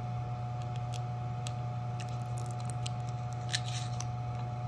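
Steady buzz of an air cleaner, with light clicks and a short scratchy rasp about three and a half seconds in as a fingernail picks at the end of a washi tape roll.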